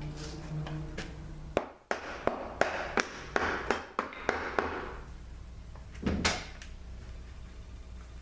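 Metal parts of a 200-4R automatic transmission clanking and scraping as the drums and gear train are worked out of the case: a quick run of sharp knocks and rattling about a second and a half in, then one heavier thump a little later. A steady low hum runs underneath.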